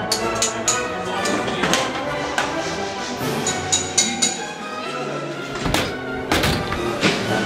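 Orchestral background music with strings, with sharp knocks and bangs cutting through it every second or so, the loudest pair near the end: a kitchen being smashed up by hand.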